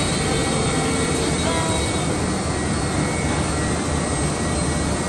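Woodworking CNC router running: a steady, even machine noise without breaks.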